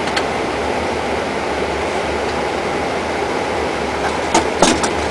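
Steady flight-deck noise of an airliner on approach: a constant rush of airflow and ventilation over a low hum, with a few short clicks near the end.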